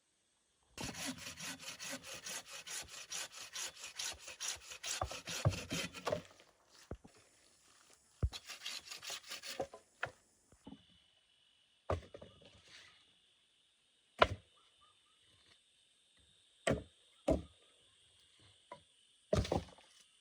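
Wood being sawn by hand in quick, even strokes, about five or six a second, in two runs, followed by a few separate sharp knocks of wood on wood.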